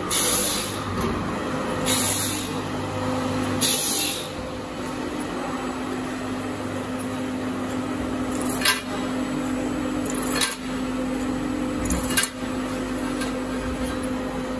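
Brake pad slotting and chamfering machine running with a steady motor hum, its cutting wheels grinding slots into the pads' friction material in six short high-pitched rasps, roughly one every two seconds.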